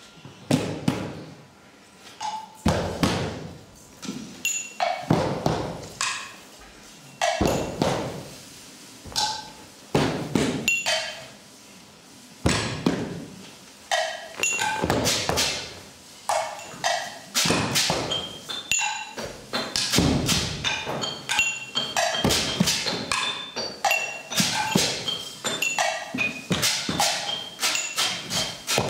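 Hand drums struck by a small group of players, with deep strokes that drop in pitch. The strokes start a second or two apart and from about halfway build into a faster, denser rhythm with higher ringing hits.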